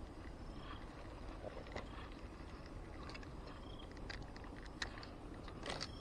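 Faint steady low rumble with scattered light clicks, a brief cluster of clicks near the end, and short high chirps about once a second.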